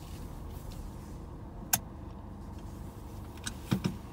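Steady low rumble of a car moving slowly, heard from inside the cabin. One sharp click a little under two seconds in, and a few more clicks near the end.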